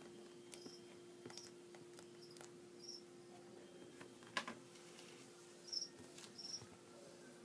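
Faint handling noise from a vinyl toy figure being turned by hand: scattered soft clicks, one sharper knock about four seconds in, and a few short high squeaks, over a steady low hum.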